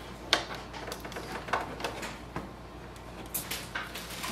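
Scattered light clicks and knocks as the plastic housing of an inkjet printer is handled: the power cable is pushed into its back and the printer is tipped back down onto the table.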